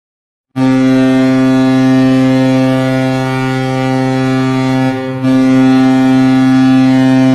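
Goal horn: a low, ship-style air horn starting about half a second in and held as one long steady blast, dipping briefly about five seconds in before sounding on.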